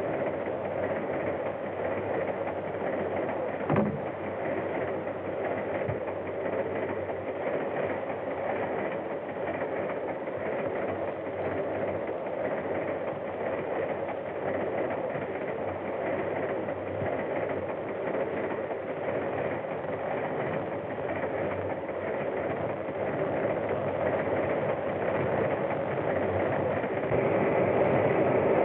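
Steam train running steadily, with one short knock about four seconds in and growing louder near the end. The sound is dull, with no treble, as on an old film soundtrack.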